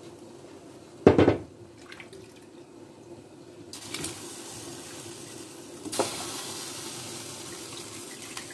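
Cubed raw potatoes tipped into a saucepan of hot water, landing with a splash about a second in. A steady watery hiss follows, growing louder about six seconds in.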